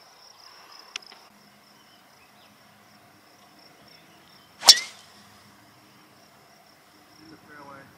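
A golf driver striking the ball on a tee shot: one sharp, loud crack a little past halfway, over a steady high-pitched buzz.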